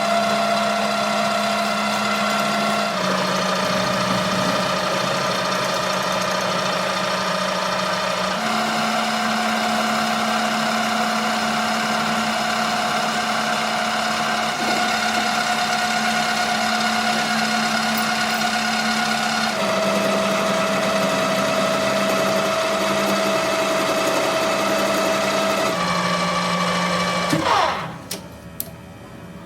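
A workshop machine's motor running with a steady hum, its pitch stepping to a slightly different note a few times. Near the end it winds down with a falling whine and the level drops away.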